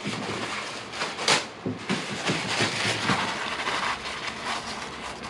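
Paper towel rubbing and rustling as it is scrubbed around inside a plastic motorcycle brake fluid reservoir, in quick repeated strokes, with one sharper rub a little over a second in.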